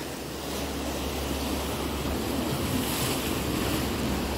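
Sea waves washing against the rocks below, a steady rush of surf, with some wind on the microphone.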